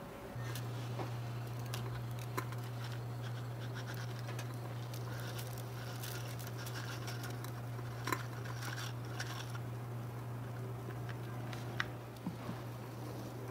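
A low steady hum sets in just after the start, with scattered light ticks and scratches over it: dry spaghetti being tipped from its box into a small steel saucepan of water on a miniature stove, the sticks tapping against the pot.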